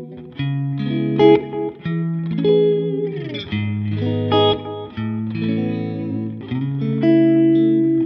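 Suhr offset electric guitar played through a Line 6 Helix running a Matchless CH1 amp model into a Greenback cab model, strumming and picking big open-string chord voicings that ring and change every second or so. About three seconds in, the notes slide down in pitch.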